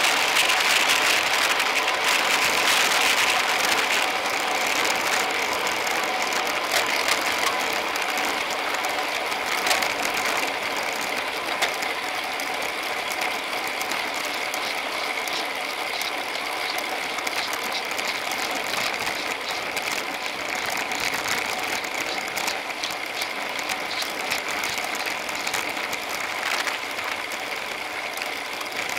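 Road-bike freewheel hubs ticking rapidly as riders coast in a tight bunch, over a steady hiss of tyres and wind. The sound is picked up by a camera mounted on the bike.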